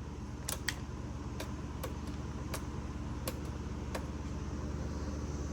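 A few faint, sharp clicks or taps at irregular intervals over a steady low hum.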